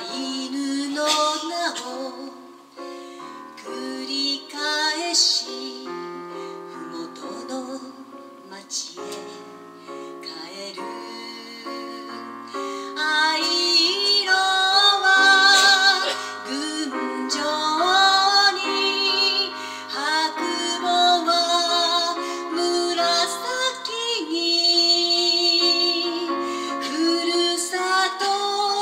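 A woman singing a slow song live with piano accompaniment, holding long notes with vibrato. The singing grows louder about halfway through.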